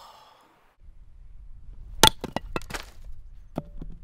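A hatchet strikes a piece of firewood about two seconds in, splitting it. The blade rings on impact, followed by a quick run of sharp cracks and clatters as the split pieces fall. A lighter knock comes near the end.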